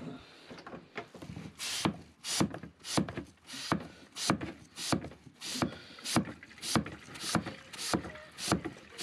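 Hand-pump vacuum fluid extractor being pumped, with a steady stroke about every 0.6 s from about two seconds in and a short whoosh of air on each stroke. The pumping draws a vacuum in the tank to suck oily water up the hose out of the bilge.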